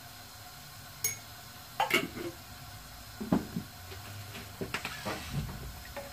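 A metal spoon clinking and knocking against a glass spice jar and an aluminium cooking pot while dry masala powder is added and stirred in: four or five separate clinks with a short ring, over a steady low hiss.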